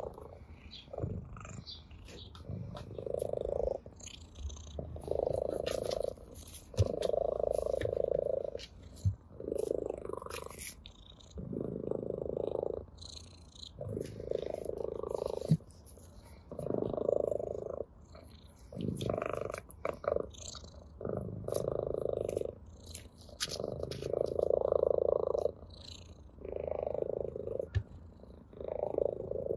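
Orange tabby cat purring with pleasure, the purr rising and falling in long pulses with each breath, about one every two seconds, with small clicks scattered between.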